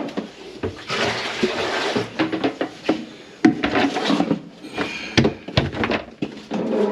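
Water splashing and gurgling in a plugged kitchen sink, in uneven surges, with scattered knocks and clatters.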